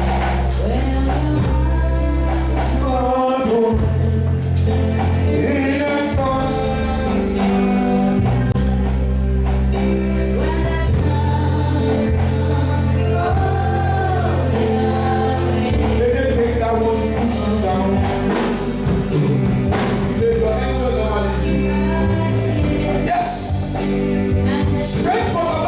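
Gospel music with singing over a steady bass line.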